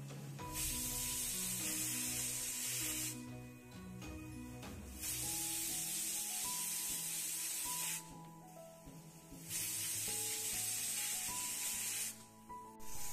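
Stovetop pressure cooker whistling as its weight valve lets off steam: three long hissing blasts of two to three seconds each with short gaps, and a fourth starting near the end. The whistles mark that full pressure has built up under a high flame.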